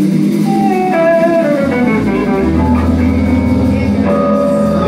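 Live blues band playing an instrumental passage: a guitar line over sustained chords, with bass guitar coming in about two seconds in.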